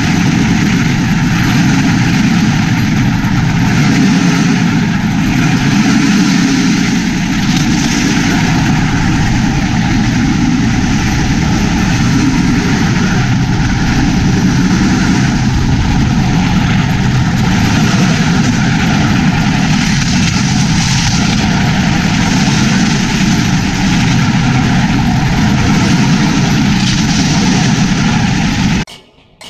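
Bamboo train (norry) running along the rails: a steady, loud engine drone mixed with the rattle of the platform and wheels on the track. It cuts off suddenly near the end.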